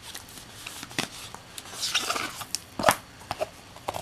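A folding cardboard game board being unfolded by hand: light rustling and small taps, with one sharp tap about three seconds in.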